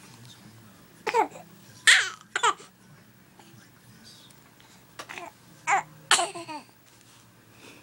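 Baby babbling and cooing in short, high-pitched squeals, a few in quick succession, then another cluster a few seconds later.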